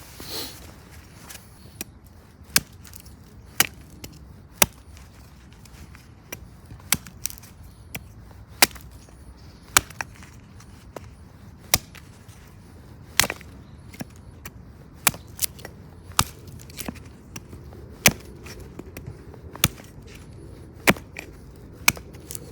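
Gransfors Bruk Small Forest Axe chopping into wood: a long series of short, sharp strikes at an uneven pace, about one a second, some louder than others.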